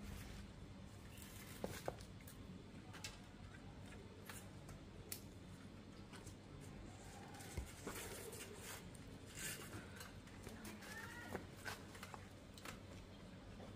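Scattered light clicks and small knocks as a wicker basket is handled and fastened onto a bicycle's rear rack, faint and irregular.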